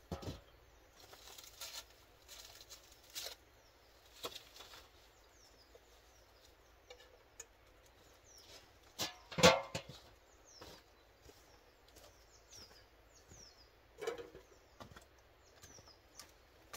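Small birds chirping in the woodland: repeated short high notes that slide downward, mostly in the second half. Scattered knocks and clatter of wood being handled, the loudest about halfway through.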